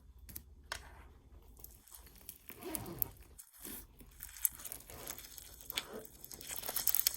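Crunchy slime packed with beads being squished and stretched by hand, giving scattered crackles and pops that grow denser near the end.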